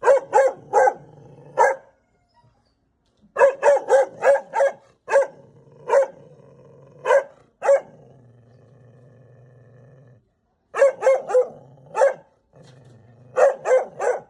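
A dog barking angrily in repeated bursts of sharp barks, echoing in the house. Between the bursts it gives a low, steady growl.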